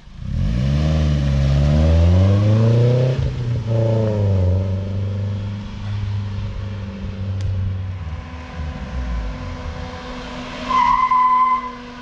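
The 1974 Datsun 620 pickup's KA24DE 2.4-litre four-cylinder accelerating hard, revving up, dropping at a gear change about three seconds in, revving up again, then running on more quietly. Near the end a brief loud squeal sounds.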